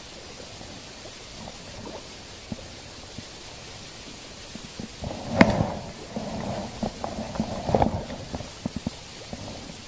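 Close handling noise: clothing rustling and fishing tackle knocking by the microphone over a steady hiss. It is quiet at first, with a burst of rustling and sharp knocks in the second half; the loudest knock comes a little past halfway.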